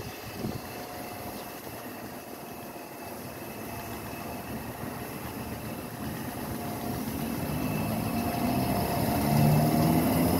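ScotRail Class 320 electric multiple unit pulling away and passing close by, its traction motor whine climbing in pitch and getting louder as it speeds up, over the rumble of the wheels on the rails.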